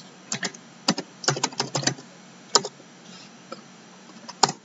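Typing on a computer keyboard: a quick run of keystrokes in the first two seconds, a single keystroke a little past halfway, and one sharper click near the end.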